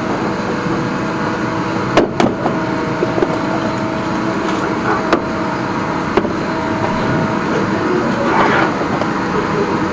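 High-pressure drain jetter running steadily while clearing a blocked rainwater pipe, a constant machine-and-water noise with a faint whine. A few sharp knocks cut through, two about two seconds in and more around five and six seconds.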